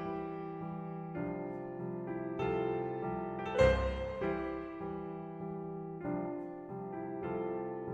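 Background piano music: a gentle tune of held notes, with one louder accented chord about three and a half seconds in.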